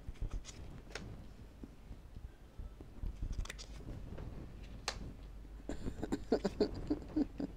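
Tarot cards being dealt one at a time from the deck onto a cloth-covered table: a few sharp card snaps and soft slaps as each card is pulled and laid down.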